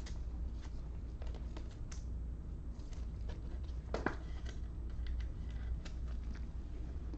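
Scattered light clicks and rustles of trading cards being handled, with one sharper click about four seconds in, over a low steady hum.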